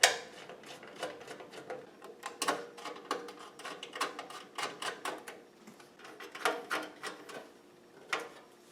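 Screwdriver driving the motherboard screws into a PC case: a run of small, irregular metal clicks and scrapes, with a sharper click right at the start.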